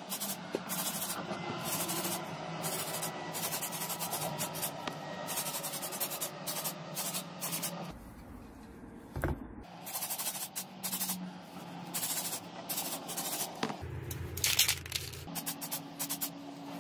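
Aerosol spray can spraying in many short bursts, each a sharp hiss that starts and stops, as grinder housing parts are coated.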